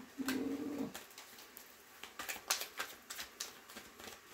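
Tarot cards being shuffled by hand: a string of short, soft card snaps and slaps. In the first second a short, steady, coo-like tone is the loudest sound.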